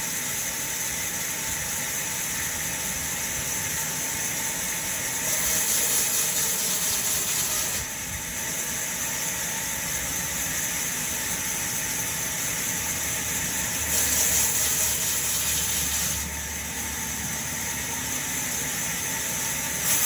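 Sawmill band saw running steadily with a high hiss and squeal as its blade rips lengthwise through a raw log; the noise grows louder twice, for two or three seconds each, about a quarter of the way in and again past the middle.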